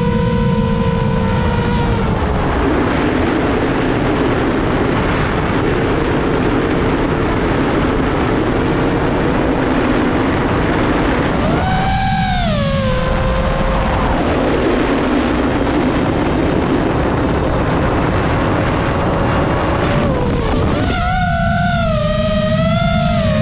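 A 7-inch FPV quadcopter's motors and props whining, their pitch rising and falling with the throttle. In long stretches the whine sinks under heavy rushing wind on the onboard camera's microphone, and it comes back strongly about twelve seconds in and again near the end.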